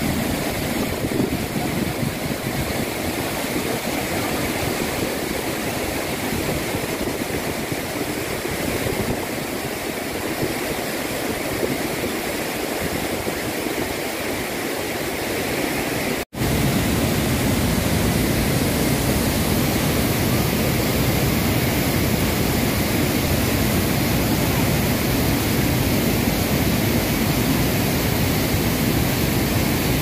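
Steady rushing noise of a waterfall. It breaks off for an instant about sixteen seconds in and comes back louder and fuller.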